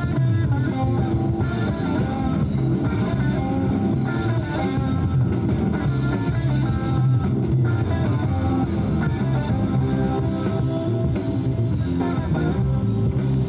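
Instrumental music with guitar and bass, many short notes over a steady low line.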